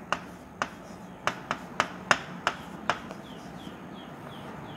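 Stylus tapping and clicking against the glass of an interactive touchscreen board during handwriting: about eight sharp taps at uneven intervals over the first three seconds.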